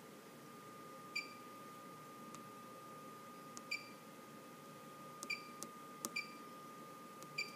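Stylus taps on a Schneider Electric Magelis touchscreen keypad, about nine of them, each giving a short high beep as a key is entered. A faint steady high whine runs underneath.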